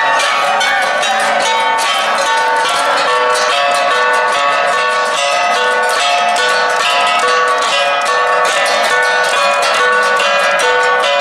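Cordilleran flat bronze gongs (gangsa) played as an ensemble: a fast, steady rhythm of struck, ringing metal tones at several interlocking pitches.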